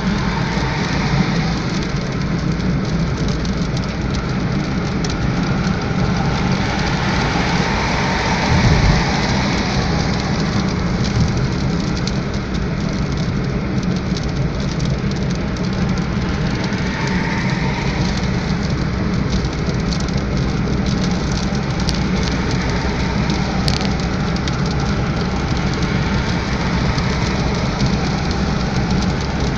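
Steady rain with the low rumble of a car driving through it, and raindrops tapping throughout. There is one louder low thump about nine seconds in.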